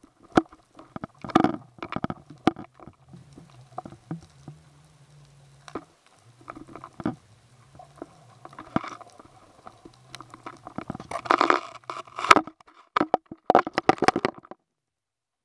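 Irregular clicks, knocks and crackling scrapes on an underwater camera housing as fish bite at the bait tied to it and the camera shifts on the seabed, over a faint steady low hum. The sound cuts off abruptly near the end.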